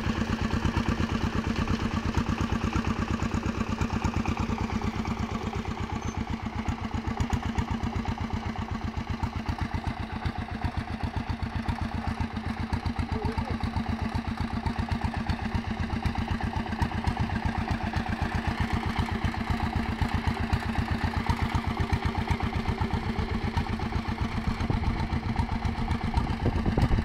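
Small tractor's engine running steadily under light load while pulling a multi-row seeder, with a rapid, even chugging beat.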